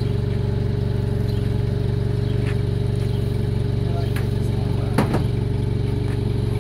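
Toyota forklift's engine running steadily at idle, a constant low hum, with a single sharp knock about five seconds in.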